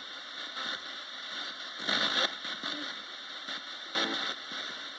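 Roberts radio used as a ghost box, giving out steady static hiss with two short, louder bursts of noise about two and four seconds in.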